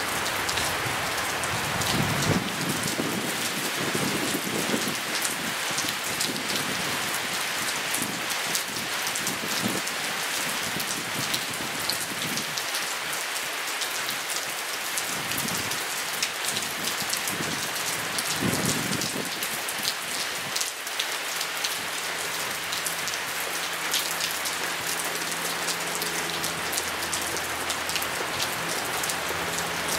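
Steady rain falling on grass and a wet paved path with puddles, as an even hiss with close single drop hits throughout.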